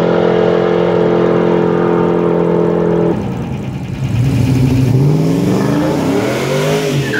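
Drag-racing car engines at full throttle. One holds a steady high pitch and cuts off suddenly about three seconds in. After a short lull an engine accelerates, its pitch climbing in several successive pulls.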